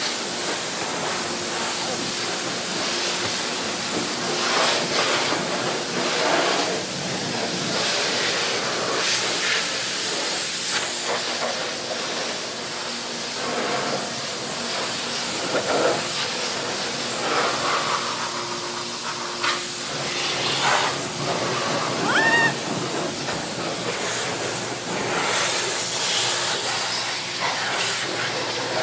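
Self-serve car wash high-pressure wand on spot-free rinse, a steady hissing spray of water hitting a pickup truck's body panels, windows and wheel well. It surges as the stream moves, with a brief high rising squeak about three-quarters of the way through.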